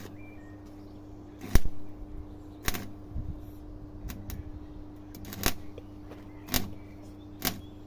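A series of sharp, short knocks, roughly one a second and uneven in strength, the loudest about a second and a half in, over a steady low hum.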